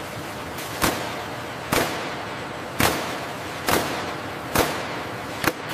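Robotic fastening tool setting fasteners in an aircraft fuselage section: six sharp bangs about once a second, over a steady machine hiss.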